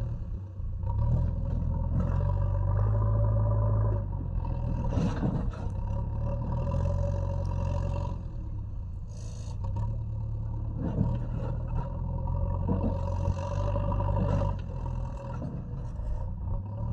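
JCB 3DX backhoe loader's diesel engine running under working load, its level swelling and easing every few seconds, with a steady whine over the rumble and scattered short knocks and scrapes.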